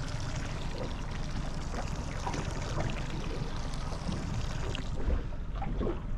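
Outboard motor idling with a steady low hum, while water laps and trickles against the boat's hull.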